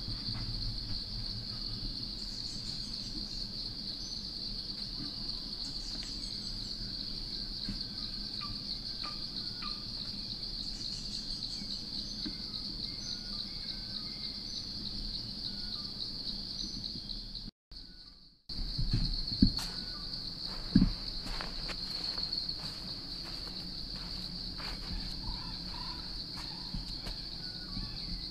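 Steady, high-pitched forest insect chorus with a fast pulsing buzz, and a few faint bird calls over it. The chorus cuts out for a moment a little past the middle, and two sharp knocks follow soon after.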